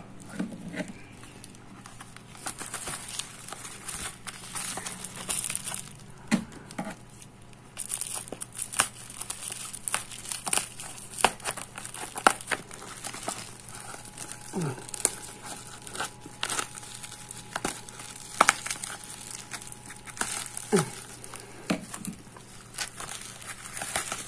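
Plastic packaging and bubble wrap being crinkled, pulled and torn open by hand: a long run of irregular crackles and sharp clicks, with a few short squeaky falling tones.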